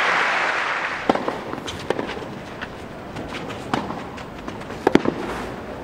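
Tennis ball being struck back and forth in a rally on a clay court: a handful of sharp racquet pops about a second apart. Crowd applause dies away in the first second.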